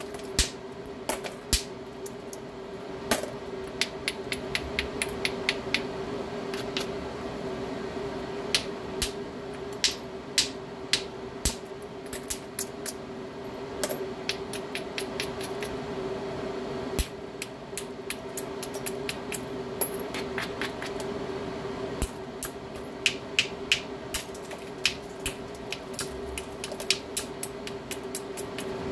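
Hammerstone striking the edge of a stone biface in hard-hammer percussion flaking: a long series of sharp clicking knocks at an uneven pace, sometimes several in quick succession, over a steady low hum.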